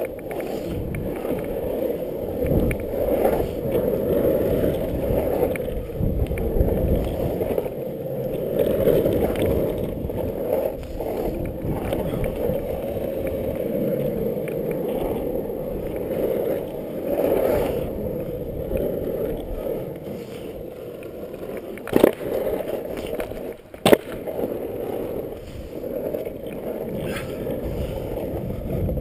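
Longboard wheels rolling on asphalt: a steady rumble that swells and eases as the rider moves, with two sharp knocks about two seconds apart near the end.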